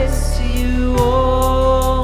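Worship song played live: a girl's voice singing lead in long held notes over strummed acoustic guitar and an electronic drum kit. A drum hit falls about a second in, as the next note begins.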